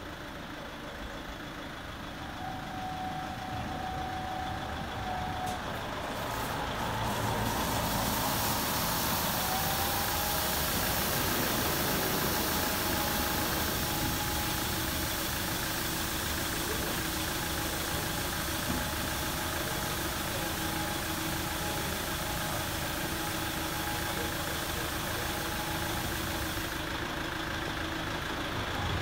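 Aquarama Stargate S4 car-wash gantry running over a foam-covered car: a steady rush of spray and machine noise that grows louder and hissier about seven seconds in, with two short whining tones in the first ten seconds.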